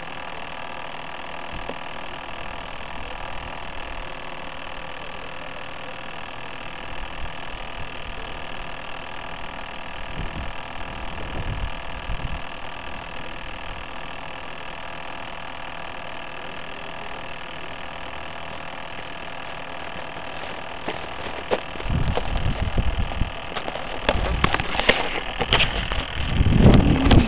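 Steady electrical whine made of several fixed tones from the downed model glider's onboard electronics. From about 22 seconds in, low thumps and rustling of handling noise get louder as the glider is picked up.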